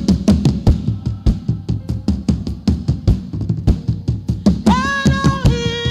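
Gospel worship music with a steady drum beat. Near the end a held melody line comes in over the drums.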